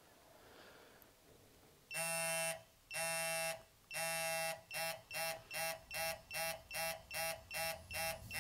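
Digital torque wrench beeping during an angle-torque pull. About two seconds in come three long beeps about a second apart, then shorter, quicker beeps at about three a second, signalling that the 90-degree target angle is close.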